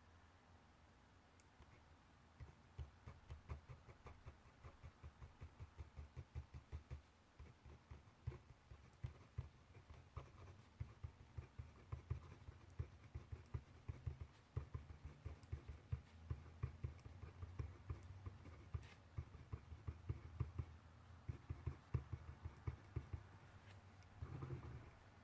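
Faint handwriting on paper: rapid strokes tapping and scratching in quick runs, starting about two seconds in.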